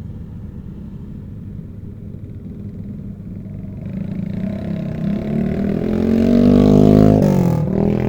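Rice combine harvester engine running steadily, then revving up over a few seconds to its loudest before the pitch drops sharply back down near the end.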